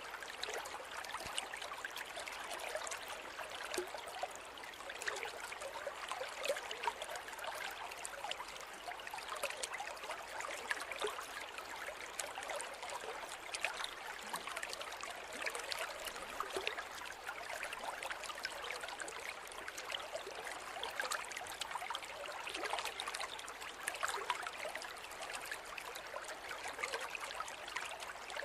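River water flowing over stones, a steady babbling and trickling with no deep rumble.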